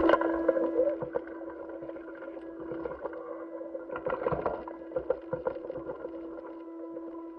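A steady hum with scattered crackles and clicks, the crackling busiest about four to five seconds in.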